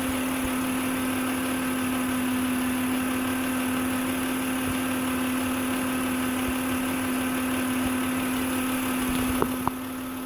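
2006 Acura MDX's 3.5L V6 idling, with a steady whine from its old, failing alternator. Two sharp clicks near the end.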